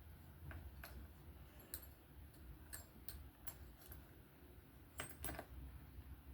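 Small metal knife parts clicking and tapping together as a folding knife's pivot is fitted back in, about eight separate light clicks with a close pair about five seconds in.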